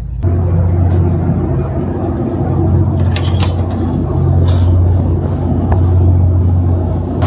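Steady low engine drone of a vehicle under way, with a few faint clicks in the middle.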